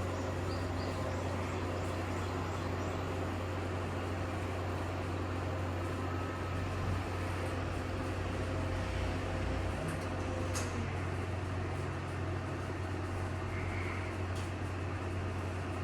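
Extra-large coin-laundry washing machine running with a steady mechanical hum, near the end of its cycle. A faint click comes about ten and a half seconds in.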